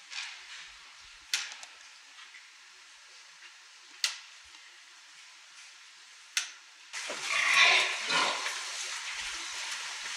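Barn sounds from a pen of sows at an electronic sow feeder: three sharp clicks a couple of seconds apart, then from about seven seconds in a louder, rough noise from the sows.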